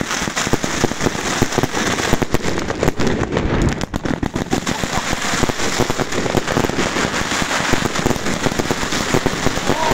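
Fireworks and firecrackers going off densely: a rapid, continuous stream of bangs and crackling with no let-up.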